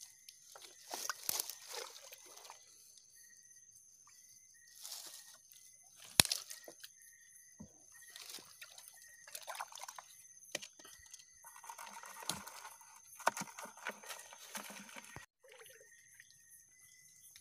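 Shallow water splashing, sloshing and dripping in irregular bursts, with short knocks, as a wire-framed net crab trap is handled and lifted; the loudest is a sharp knock about six seconds in. Two faint steady high tones run underneath.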